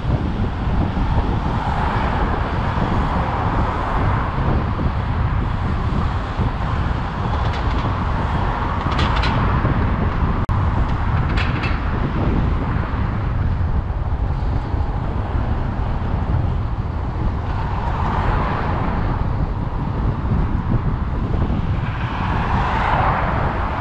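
City road traffic with vehicles passing every few seconds, under a steady wind rumble on the microphone of a moving camera.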